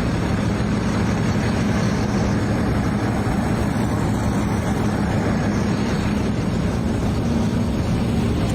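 An engine running steadily: a constant low hum under loud, even noise, with no change in speed.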